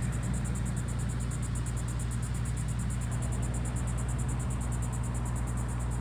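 A steady low engine hum, with a high-pitched insect chorus pulsing in a fast, even rhythm above it.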